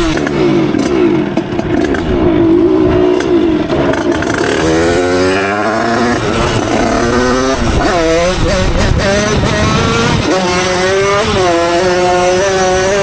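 Two-stroke Derbi Senda moped engine with a Stage6 88cc kit and Voca Cross expansion exhaust, ridden hard. It holds high revs at first, the revs fall away about four seconds in, then it is blipped up and down several times before settling back to a steady high pitch near the end.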